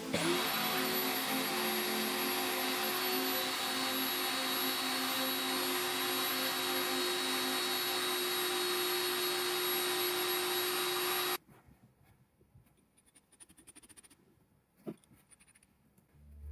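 Cordless drill running steadily, spinning a steel rod against an abrasive stone: a motor whine over a grinding hiss, which cuts off suddenly about eleven seconds in. After it, near quiet with a faint click.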